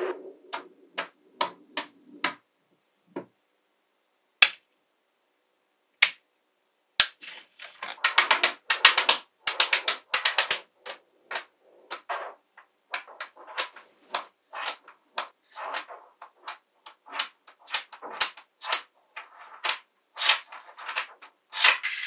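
Small metal magnetic balls snapping together, a sharp click each time. The clicks come singly at first, turn into a rapid clatter from about seven to eleven seconds in, then go back to scattered clicks.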